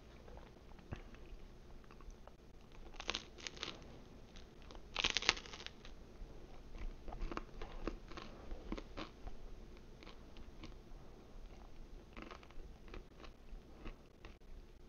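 A person chewing and crunching frozen pizza, with irregular crisp crunches of the crust. The loudest burst of crunching comes about five seconds in.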